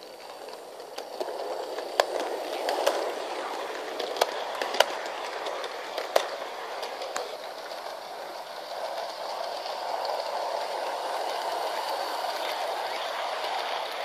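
Model 060-EA electric locomotive and passenger coaches running on sectional track: a steady rolling rumble of wheels and motor that grows louder about two seconds in as the train nears, with sharp clicks as the wheels cross the rail joints.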